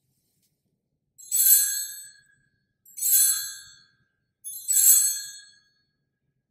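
Altar bell rung three times, each ring bright and high and fading within about a second: the sanctus bell marking the elevation of the consecrated chalice.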